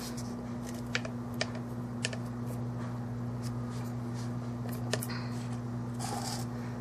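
A few light clicks and taps of small nail tools and containers being handled, over a steady low electrical hum.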